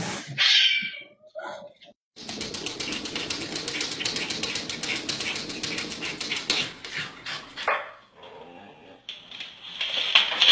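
Dogs barking in short bursts. From about two seconds in there is a long stretch of rapid, evenly repeated rasping strokes lasting several seconds, and a loud burst near the end.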